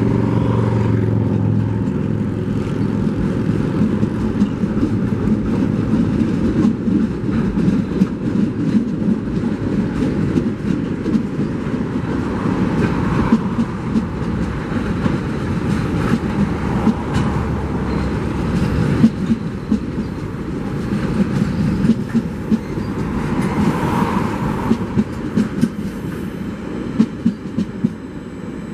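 Empty freight wagons, log wagons and then bare container flat wagons, rolling past on the rails: a steady rumble of wheels with a fast clickety-clack over the rail joints. Near the end it thins to a few separate clacks as the last wagon goes by.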